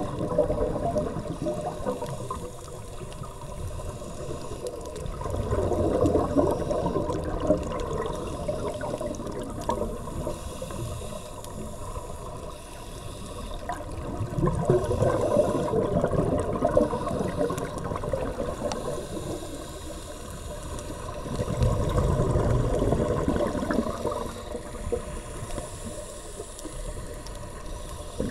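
Underwater sound of scuba divers exhaling through their regulators: bubble streams gurgle up in three long swells about seven to eight seconds apart, over a steady underwater hiss.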